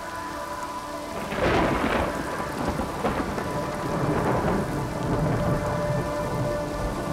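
Thunderstorm soundtrack: a crack of thunder about a second in, then rolling rumbles over steady rain, with a held drone of steady tones beneath.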